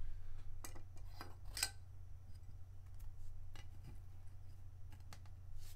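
A few light clicks and taps of a trading card being set into a clear plastic card stand on the table, over a steady low hum.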